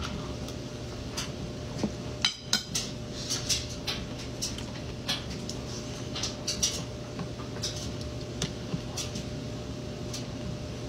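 A metal fork clinking and scraping on a plate while someone eats: an irregular scatter of sharp clicks, loudest in a quick cluster about two seconds in, over a low steady hum.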